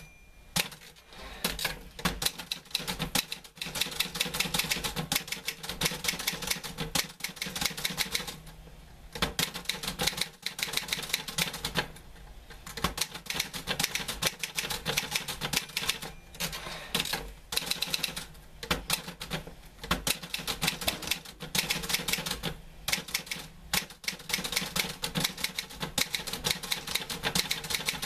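Typewriter being typed on: quick runs of key strikes with brief pauses, the longest about eight and twelve seconds in.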